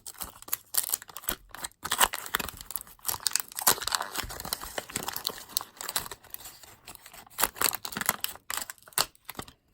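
Waxed-paper wrapper of a 1990 Fleer baseball card wax pack being torn open and crinkled: irregular crackles and rips.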